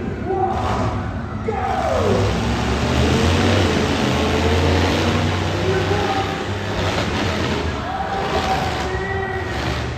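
Monster truck engine running hard under heavy load, loudest in the middle stretch, with crowd voices and shouts over it.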